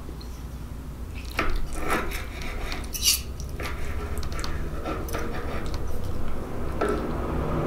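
Metal knife and fork clinking and scraping as they cut through lasagna, a handful of short separate clicks and scrapes with one sharper clink about three seconds in.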